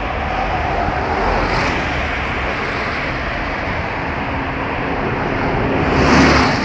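Scania Omnicity city bus passing close by: diesel engine and tyre noise over steady street traffic. The sound swells to its loudest about six seconds in, as a bus passes right alongside.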